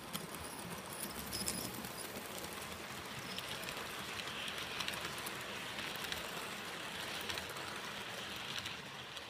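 HO-scale model passenger train rolling past close by: a steady rattle of metal wheels on the track with light clicking, louder from about three seconds in as the passenger cars and caboose go by, easing just before the end.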